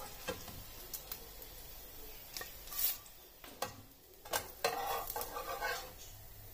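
A metal spatula clicks and scrapes against the frying pan and plate as fried potato pancakes are lifted onto a paper-lined plate: several sharp clicks, then a longer scraping stretch about five seconds in. Hot oil sizzles faintly underneath.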